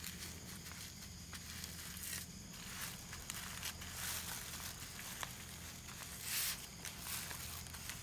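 Fresh banana leaf rustling and crinkling as it is rolled by hand around shredded tobacco, in several soft bursts, the loudest about six seconds in. A steady low hum runs underneath.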